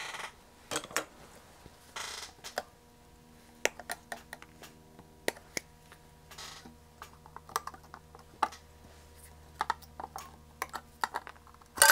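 Scattered small clicks and taps of hands handling electronic components, picking parts from a plastic tray and fitting their wire leads into a circuit board held in a board vise, with a few short rustles. A faint steady hum runs underneath.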